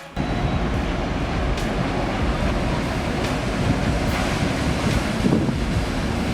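Wind buffeting the microphone over the wash of waves at sea, a steady rushing noise with a heavy low rumble.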